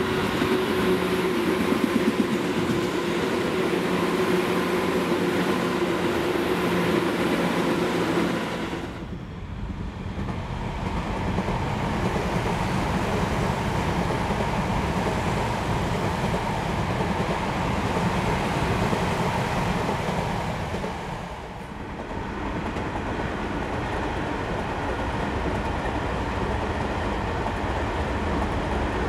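Electric commuter trains running on the line, in three edited segments: a Tobu 9000 series, then, after a cut about 9 seconds in, a Tobu 50000 series, then, after another cut about 21 seconds in, a Tokyu 5050 series (4000 subseries) train. Each segment is a steady run of train noise with a faint steady hum.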